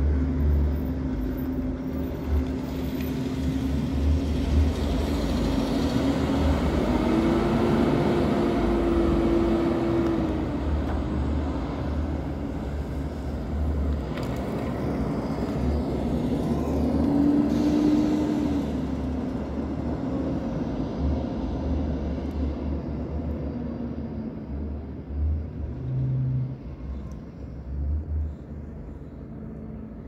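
School bus engine running as buses drive off, its drone rising and falling in pitch twice. The drone sits over an uneven low rumble and fades away over the last few seconds.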